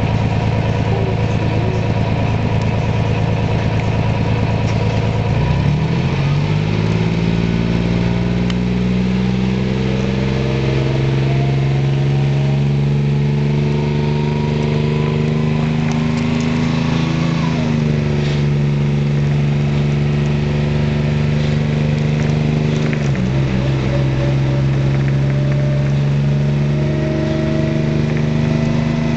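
New Flyer D40HF city bus's diesel engine heard from on board: it idles steadily, then about five seconds in the bus pulls away and the engine note climbs in one long rise. The pitch drops sharply about halfway through and again a few seconds later as the automatic transmission shifts up, then climbs again.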